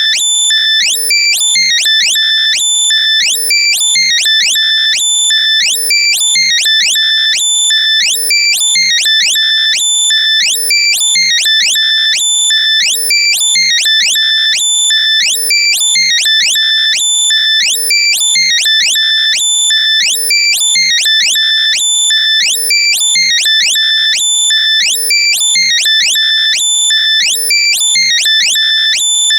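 Loud, compressed synthesized alert sound for locating lost earbuds: high-pitched electronic beeps and rapid rising chirps repeating in a continuous loop.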